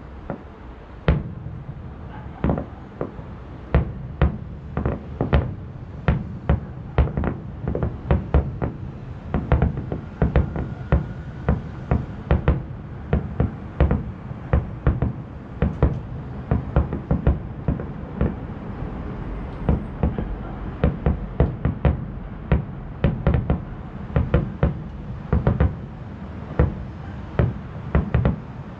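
Aerial fireworks shells bursting in rapid succession: a steady string of sharp booms, about two or three a second, over a low rumble.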